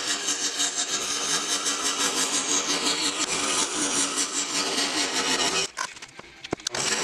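Scroll saw running, its blade cutting through thin layered wood with a steady buzzing rasp. The sound drops away sharply for about a second near the end, then comes back.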